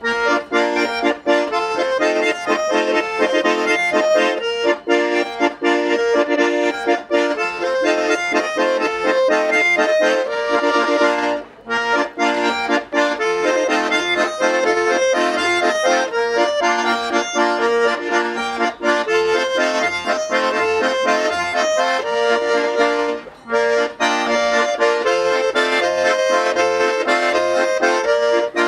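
Two Schwyzerörgeli (Swiss diatonic button accordions) playing a Swiss folk tune together, with two brief breaks between phrases about 11 and 23 seconds in.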